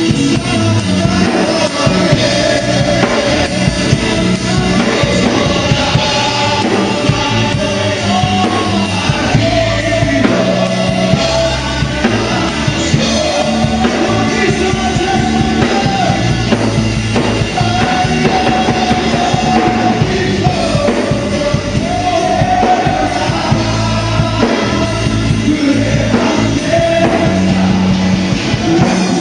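Live worship song: singers and a congregation singing a steady melody over strummed acoustic guitars and a drum kit, amplified through the church PA.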